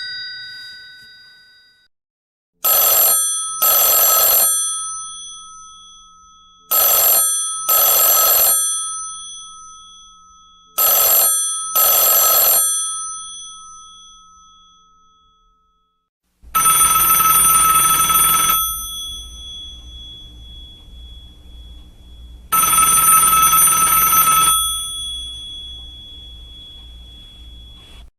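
Old telephone bells ringing in a double-ring pattern: three pairs of short rings about four seconds apart, the gongs ringing on and fading after each. About two thirds of the way through, a different phone bell gives two longer rings of about two seconds, some six seconds apart, each also fading slowly.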